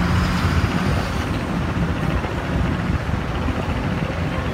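A fishing boat's engine running steadily, a low drone.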